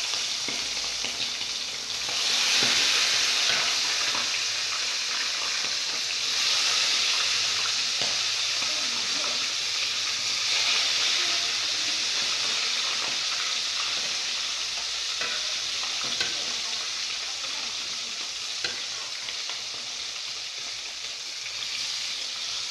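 Chicken pieces frying in hot oil in a steel kadai: a steady sizzle that grows louder about two seconds in, with a couple of faint ticks later.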